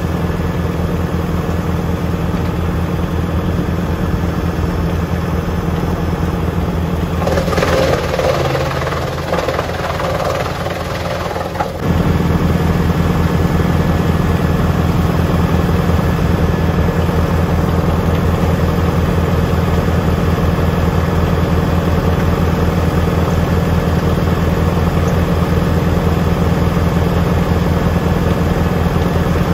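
Tractor-driven Junkkari HJ500 wood chipper running with a steady machine drone. About seven seconds in, a rougher, noisier stretch sets in and the low drone weakens. It ends abruptly about twelve seconds in, when the full steady drone returns.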